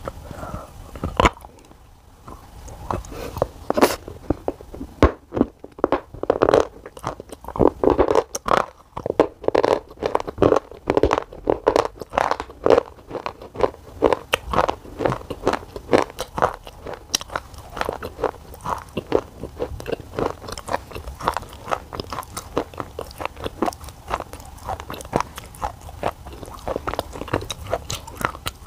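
Black shale clay bitten with a sharp snap about a second in, then crunched and chewed in the mouth. The crunches come thick and loud for the first dozen seconds, then ease into softer, steadier chewing as the clay turns to a wet paste.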